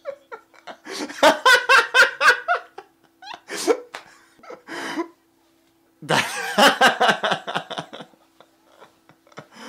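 Laughter in rapid 'ha-ha-ha' pulses, coming in three bouts: a long one about a second in, a shorter one around three and a half seconds, and another long one around six seconds in.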